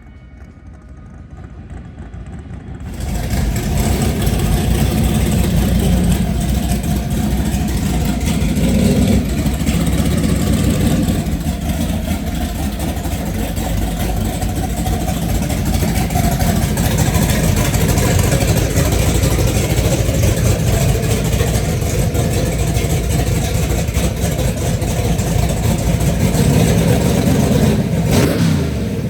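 Drag-prepped all-motor Mustang engine run hard at high revs, coming in suddenly about three seconds in and holding for roughly 25 seconds with a dense hiss over it, then dropping off near the end.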